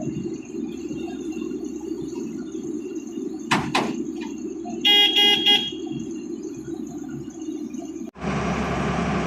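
Heavy vehicle engine running steadily, with two sharp knocks and then a vehicle horn sounding three short toots about five seconds in. Near the end the sound cuts abruptly to a louder, hissier engine noise.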